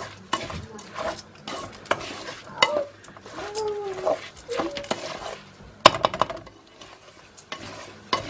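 Wooden spoon scraping and knocking against a stainless steel bowl as a rice and onion filling is stirred and sautéed over a gas flame, with light sizzling. The strokes come irregularly, with one sharper knock about six seconds in.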